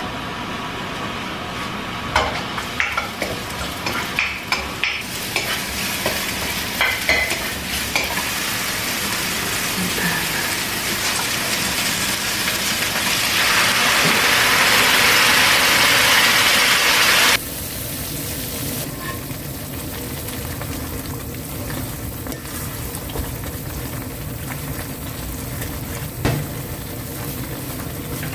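Sliced mushrooms sizzling in oil in a nonstick wok, with sharp clicks of a utensil stirring them against the pan in the first few seconds. About halfway, the sizzle turns louder and hissier for a few seconds as cream sauce goes into the hot pan. It then drops suddenly to a softer, steady sizzle of sauce and pasta cooking.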